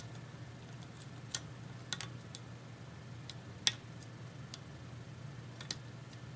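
Pick and tension wrench working the pins of a pin-tumbler lock: small, irregular clicks, about a dozen, the sharpest a little over a second in and near the middle. The crunchy clicking is typical of serrated pins, which the picker thinks this lock holds.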